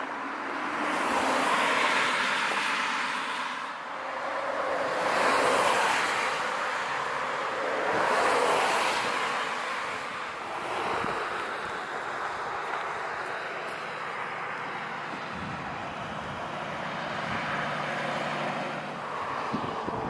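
Cars passing on a two-lane road: three swells of tyre and engine noise that rise and fade in the first half, then quieter traffic with a low engine hum.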